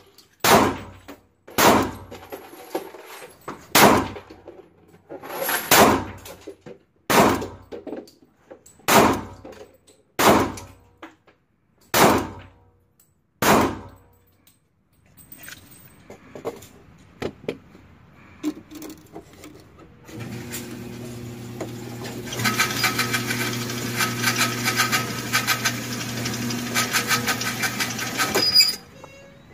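Glock 27 .40 S&W subcompact pistol firing about nine shots, one to two seconds apart, each ringing on in the indoor range. After a few quiet clicks, the range's electric target carrier runs with a steady low hum for about eight seconds, then cuts off suddenly near the end.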